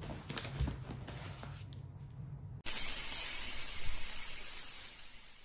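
Light knocks and rustles of a cardboard box being handled, then a sudden loud spraying hiss, like a fizzing sparkler, that starts abruptly and slowly fades out: the whoosh sound effect of an animated logo intro.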